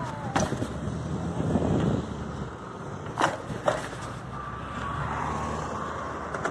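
Bicycle rolling over pavement, picked up by a phone held at the handlebars: a steady rolling rumble broken by a few sharp knocks, the loudest two about three seconds in.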